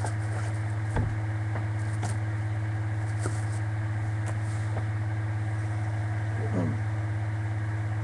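A steady low hum at an even level, with a few faint clicks of small items being handled.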